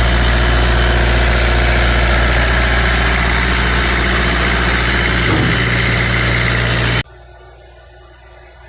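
Denyo 25 kVA diesel generator set running steadily with a constant low hum; the sound cuts off abruptly about seven seconds in, leaving quiet background noise.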